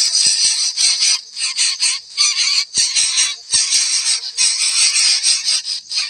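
Coucal nestlings giving a loud, high-pitched rasping hiss in irregular bursts broken by short gaps: begging or alarm hissing from the nest.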